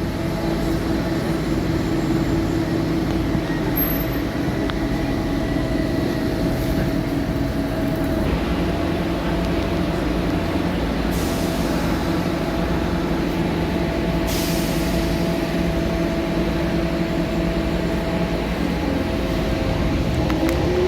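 A Docklands Light Railway train in the underground platform with its electrical equipment humming steadily at one pitch, and two short hisses of air about halfway through. Near the end a rising whine starts.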